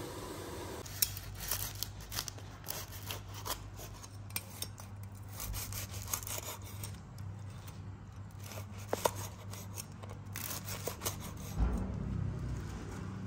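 Irregular scraping and rubbing with scattered light clicks and knocks, as of utensils worked against small ceramic dishes, over a steady low hum.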